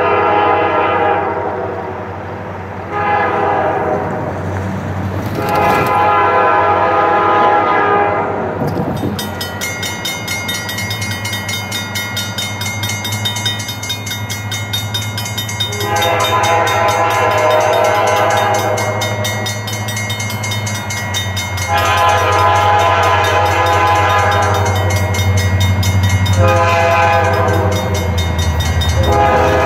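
Diesel freight locomotives sounding the air horn as they approach, in long blasts with a short one in between, repeated: the grade-crossing signal. Under the horn the engines rumble, growing louder as the train nears, and from about nine seconds in a rapid high ringing joins in.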